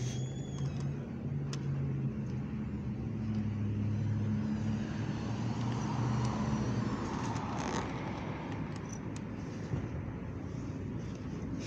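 A motor vehicle's engine running close by, a steady low hum over road noise that fades away after about seven seconds.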